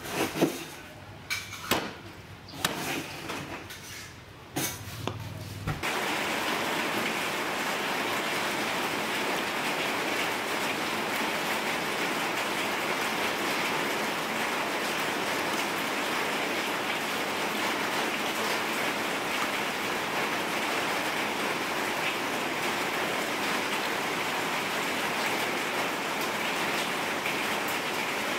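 A cleaver chopping on a wooden chopping block, several sharp knocks in the first six seconds. Then a steady rain-like hiss of water takes over for the rest, while chopped duck pieces are washed by hand in a steel bowl of water.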